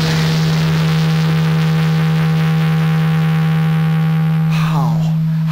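Electric guitar holding a single low note, sustained and perfectly steady without vibrato, its upper overtones fading away near the end.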